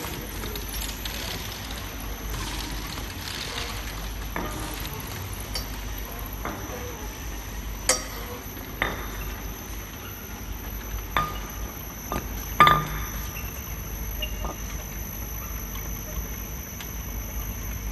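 Automatic bottle labeling machine running with a steady low hum, with glass bottles clinking sharply several times as they move through it; the loudest clink comes about two-thirds of the way through.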